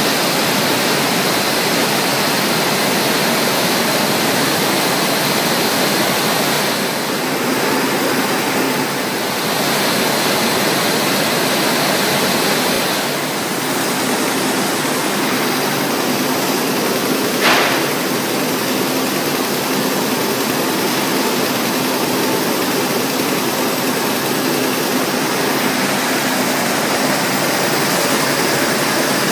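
Carton folder-gluer running, a steady rushing machine noise, with one sharp click a little past the middle.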